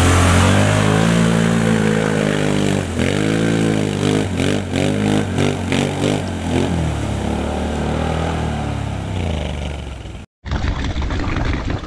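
Can-Am Outlander 1000 ATV's V-twin engine revving hard while churning through deep mud, the throttle opened and closed again and again so the pitch rises and falls several times, then settling. About ten seconds in the sound cuts out abruptly and gives way to a noisier, different sound.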